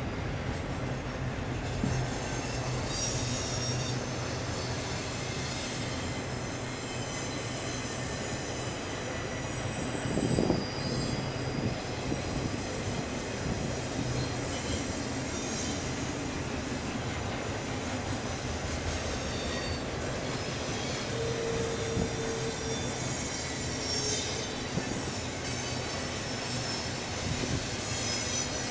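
Double-stack intermodal container train rolling past, its cars giving a steady rumble while the steel wheels squeal in thin, high tones that drift in pitch.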